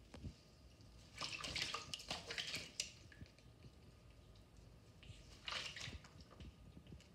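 Small parrot bathing in a shallow dish of water, flapping its wings and splashing in two bursts: about a second in for nearly two seconds, and again briefly about five and a half seconds in.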